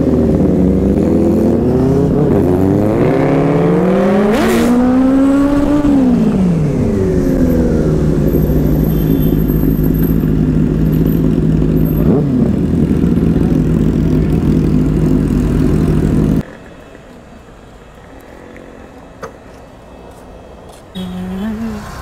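Inline-four sport motorcycle engine revving up and down several times, with a sharp crack about four seconds in, then running at a steady pitch. About sixteen seconds in the engine sound cuts off abruptly, leaving a much quieter street background.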